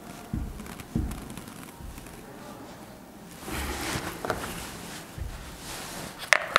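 Marker writing on a whiteboard: scratchy strokes with a few low knocks against the board, and one sharp click near the end.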